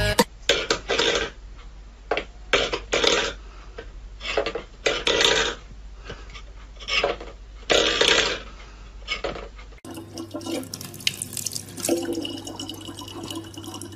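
A dozen or so short, separate noises, each under half a second. About ten seconds in they give way to a tap running a thin steady stream of water into a plastic bottle, over a low steady hum.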